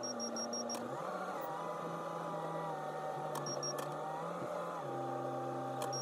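Backhoe loader's diesel engine running, its pitch stepping up and down a few times as the revs change.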